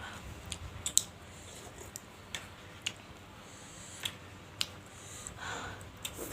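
Close-miked eating sounds: sharp, wet mouth clicks and smacks from chewing at uneven intervals, with a softer sound a little before the end.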